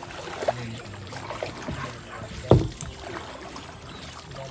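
Kayak paddling on a lake: paddle strokes dipping and swishing through the water, with a single sharp knock about two and a half seconds in.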